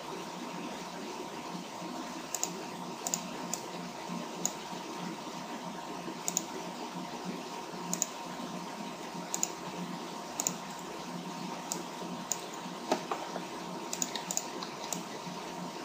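Computer mouse clicking at irregular intervals, about fifteen sharp clicks with a quick cluster near the end, as edge loops are cut with a 3D program's knife tool. Underneath runs a steady background hum and hiss.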